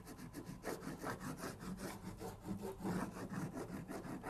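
Hard grip wax (tin kick wax) rubbed onto the kick zone of a classic cross-country ski's base in quick, repeated back-and-forth strokes: a quiet, rhythmic dry scraping.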